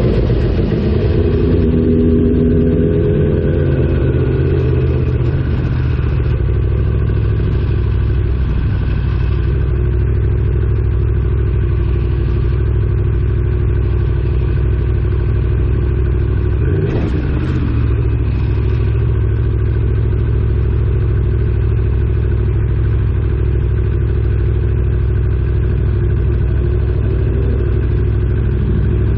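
Aprilia Tuono motorcycle engine slowing with a falling pitch over the first few seconds, then running steadily at low revs. There is a brief sharp sound about seventeen seconds in.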